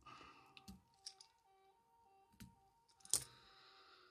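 Faint clicks and ticks of a wire whip-finish tool and tying thread as a whip finish is wrapped at the head of a fly, with a sharper click about three seconds in.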